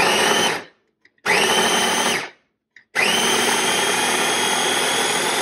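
Ninja mini chopper's electric motor pulsed in three runs, chopping red radishes: a short burst, a second run of about a second, then a long run starting about three seconds in. Each run opens with a whine that climbs in pitch as the blades spin up.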